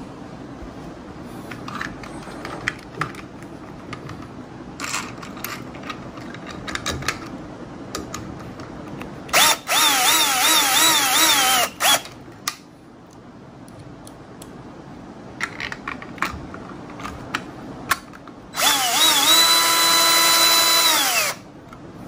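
DeWalt 10.8V cordless drill-driver spinning a screwdriver bit to drive the fixing screws of a plastic wall switch plate, in two runs of two to three seconds each: the motor speed wavers up and down in the first and holds steady in the second before winding down. Light clicks and knocks of handling the switch plate come before the first run.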